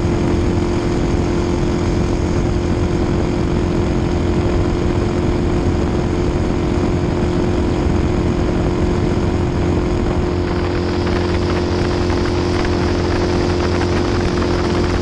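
Twin-turbo V8 race boat engine running at a steady speed, heard close up from behind the engine, with a constant pitch and a broad hiss over it; the hiss changes tone about ten seconds in.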